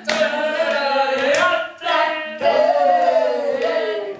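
Several voices vocalizing together in drawn-out, sing-song tones, with one long falling tone near the end.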